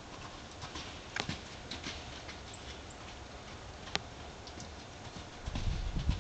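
Gypsy Vanner horses' hooves striking the ground as they gallop in a paddock, with a few sharp clicks. The low, irregular hoof thudding grows louder near the end as a horse comes close.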